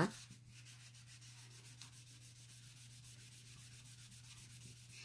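Faint scrubbing as a wet Chalk Couture board eraser is rubbed quickly back and forth over a chalkboard, wiping off old chalk paste, over a steady low hum.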